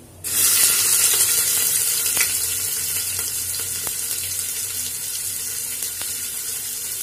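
Chopped onions dropped into hot mustard oil in a pressure cooker, setting off a loud, steady sizzle that starts suddenly just after the onions hit the oil and eases off a little as they begin to fry.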